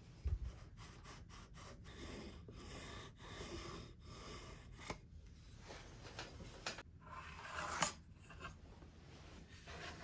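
Handling noises of a jigsaw and wooden boards on a workbench: rubbing and scraping of wood, scattered small clicks, a soft low thump just after the start and a sharper click near the end.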